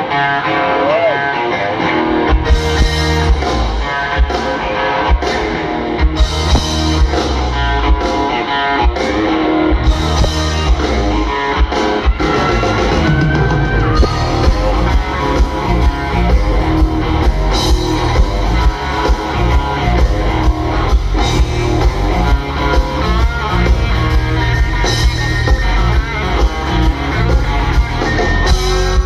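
A live rock band playing loud: electric guitar over bass guitar and a drum kit. The guitar plays alone at first, and the bass and drums come in about two seconds in and keep a steady beat.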